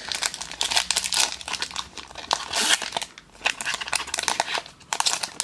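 Foil wrapper of a Pokémon booster pack crinkling and tearing as it is ripped open by hand: a run of irregular crackles with a couple of short lulls.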